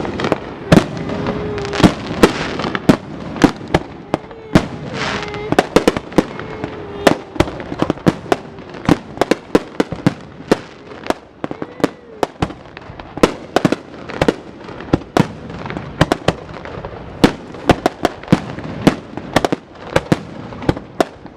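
Fireworks going off in quick succession: sharp bangs and cracks, several a second.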